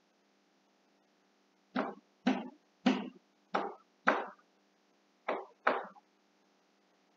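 A person coughing seven times in short, sharp coughs: five about half a second apart starting about two seconds in, a pause of about a second, then two more.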